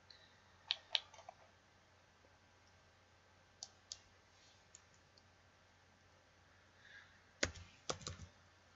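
Faint, sparse computer mouse clicks and keyboard key presses: a few single clicks early on and a louder quick cluster of keystrokes near the end, as a scale value is typed in.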